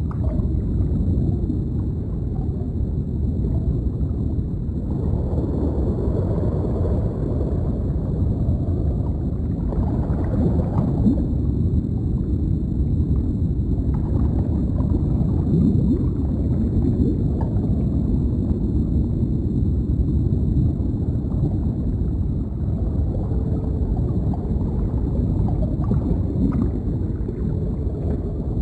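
Deep underwater ambience: a steady low rumble of water with soft bubbling and gurgling that swells now and then. A faint thin steady whine sits high above it.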